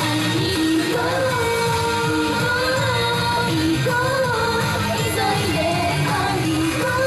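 Japanese idol pop performed live: female voices singing a melody over an upbeat pop backing track.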